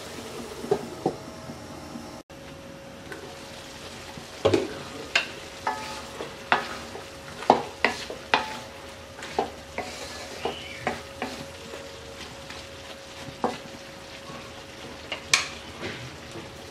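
A wooden spatula stirs dried jujubes in a metal karai, knocking and scraping irregularly against the pan, over a steady sizzle from the pot. The knocks begin about four and a half seconds in and fade out near the end.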